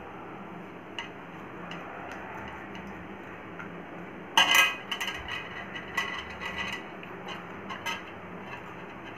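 Kitchen knife scraping and clinking against an aluminium plate while scoring slashes into a whole fish. About halfway through comes one loud clatter of metal on metal, followed by a run of lighter clicks, over a faint steady hum.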